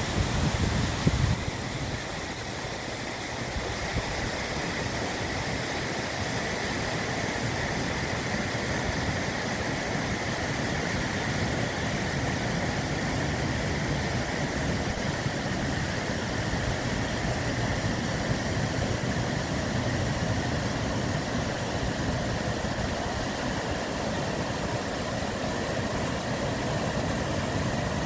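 Stream water pouring over a low stone dam and down a rock wall: a steady, even rush of water. A few rough bumps sound in the first second or so.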